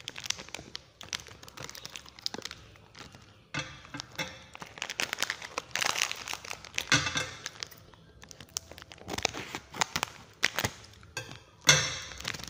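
Plastic snack-cake wrappers crinkling and tearing in the hands as the packs are opened, in irregular bursts, with a louder crackle near the end.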